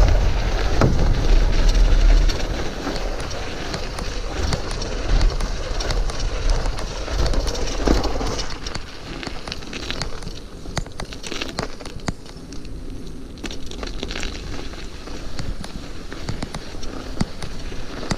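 Mountain bike riding over a snow-covered trail: the tyres crunch and crackle on snow and ice while the bike rattles over bumps. A heavy low rumble comes in the first couple of seconds and again about eight seconds in.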